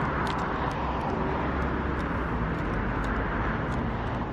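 Street traffic: a steady wash of car engine and tyre noise with a low rumble.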